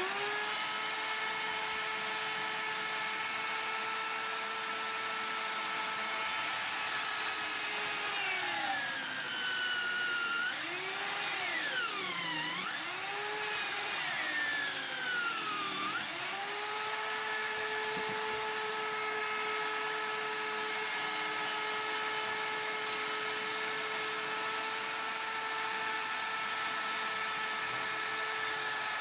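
Corded electric drill with a hole saw running at speed with a steady whine. From about eight seconds in its pitch sags and wavers as the hole saw is loaded, cutting into the wood, then climbs back to full speed at about sixteen seconds and holds steady.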